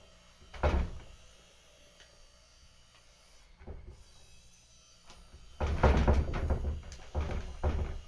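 Kittens knocking against a wooden-framed paper shoji screen: one sharp thump about half a second in, a lighter knock near four seconds, then a burst of repeated thumps and scuffs from about five and a half seconds.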